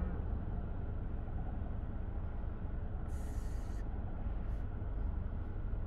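Steady low rumble inside a stopped car: the Hyundai's engine idling under the noise of cross traffic passing in front. A short hiss comes about three seconds in.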